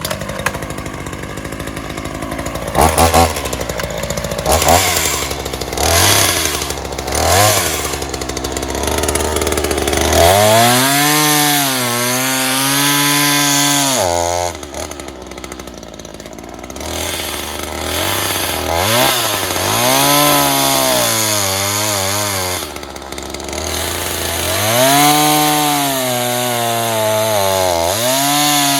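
Ryobi two-stroke gas chainsaw running, then revved hard and cutting into a small tree trunk, the engine pitch sagging under load and recovering. It eases off about halfway through and is opened up again for two more cuts.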